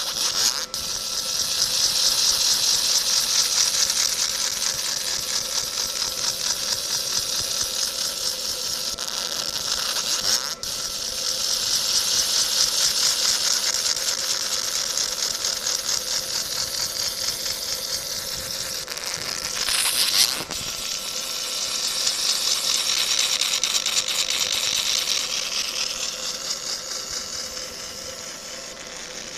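50W fiber laser marking machine cutting through a thin metal sheet: a loud, high-pitched, steady crackling buzz as the pulsed beam ablates the metal. It dips briefly about ten seconds in and flares sharply about twenty seconds in.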